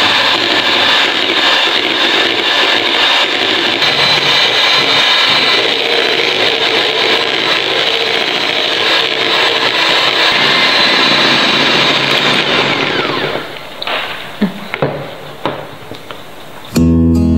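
Electric hand mixer whipping cream in a plastic bowl, a steady whirring that stops about 13 seconds in. A few light knocks follow, and acoustic guitar music starts just before the end.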